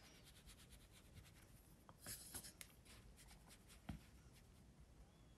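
Faint scratching of a watercolour brush dabbing and stroking on paper, a little louder about two seconds in, with one soft knock near the end.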